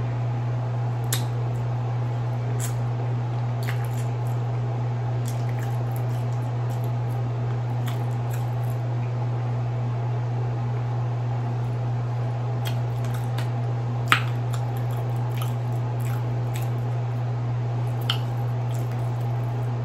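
Close-up eating sounds of king crab: wet chewing and lip smacks with scattered sharp clicks from handling the crab and its shell, the loudest about 14 seconds in, over a steady low hum.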